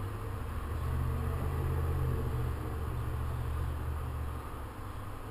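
A low mechanical hum, like a running engine or motor, swells up and stops about four and a half seconds in, over a steady background hiss.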